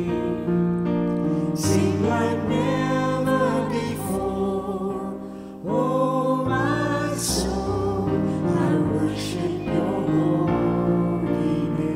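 Mixed vocal quartet of two women and two men singing a slow worship-song chorus in harmony, with piano accompaniment. The sound dips briefly between phrases about five and a half seconds in.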